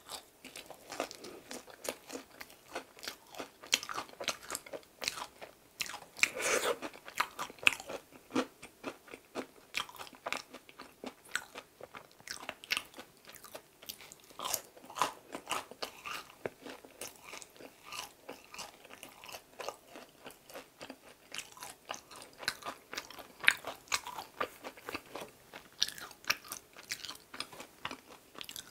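Close-miked chewing of bread: soft mouthfuls with many small crisp crackles from the sugar- and injeolmi-powder-coated crust of green tea injeolmi bread, in an irregular run of bites and chews.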